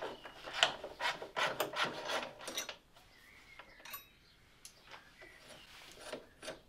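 A ratchet with a 10mm socket clicking rapidly as it undoes the battery hold-down bracket bolt, for about three seconds; then it goes much quieter, with only a few faint clicks as the loosened bolt is handled.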